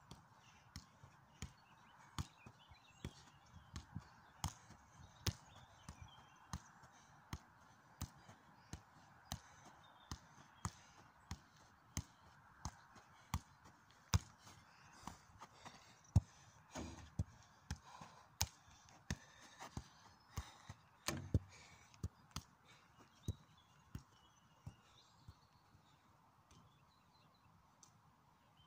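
Football being juggled in keepy-ups: a steady run of sharp thuds as foot, knee or thigh strikes the ball, a little more than one touch a second. They stop a few seconds before the end.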